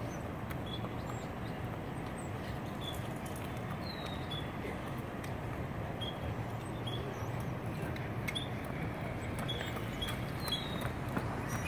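Horse's hooves on asphalt as it is trotted in hand, faint against a steady background rumble, with small birds chirping in short high notes every second or so.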